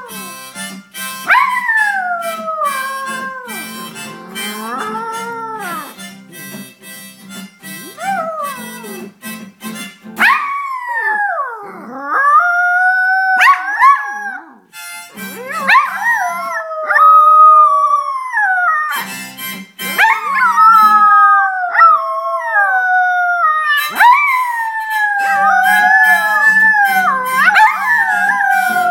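Two poodles howling along to music: long, wavering howls that slide down in pitch. The music plays under the first third, stops while the dogs howl on alone, and comes back briefly once and again near the end.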